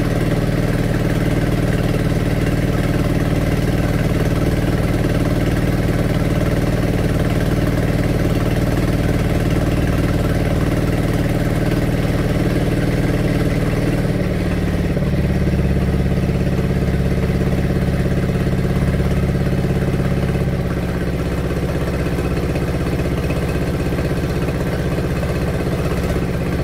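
Engine of a wooden kelotok ferry boat running steadily during a river crossing. Its note shifts lower about halfway through and it eases off slightly a few seconds later.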